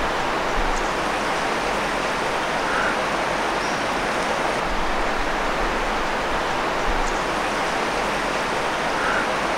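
Shallow mountain river running over rocks, a steady even rushing of water through a riffle.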